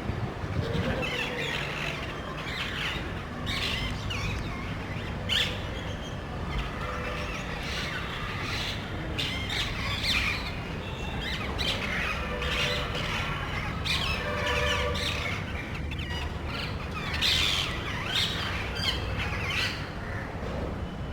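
A small group of parrots squawking, with harsh calls repeated over and over and several birds overlapping, over a steady low background rumble.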